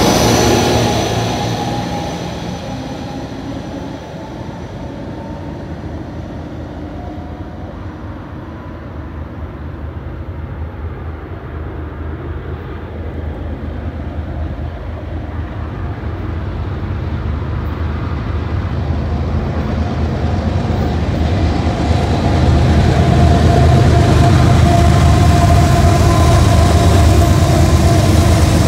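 Double-deck passenger train's last cars rolling past and fading away, then a freight train's diesel locomotives approaching with a low engine rumble that builds steadily and is loudest as they pass near the end.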